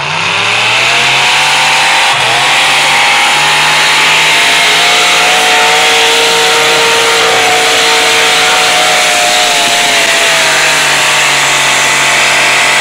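Pulling tractor's engine at full throttle while dragging a weight-transfer sled down the track. Its note climbs at the start, steps up about two seconds in, then holds high and steady, easing slightly near the end.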